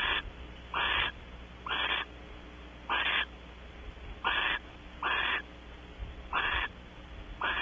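Barn owl giving a series of short, harsh, hissing calls, about one a second, eight in all.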